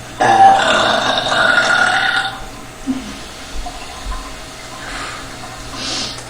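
A person lets out one long, loud burp that lasts about two seconds, brought on by drinking a large bottle of carbonated Dr Pepper.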